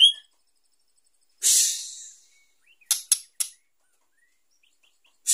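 Female white-rumped shama in breeding condition calling: the end of a whistled note at the start, a harsh rasping call about a second and a half in, three quick sharp ticks around three seconds, and another rasp at the very end.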